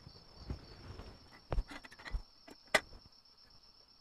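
Crickets trilling steadily, with a few knocks and clicks of camping gear being handled; the sharpest click comes about three-quarters of the way through.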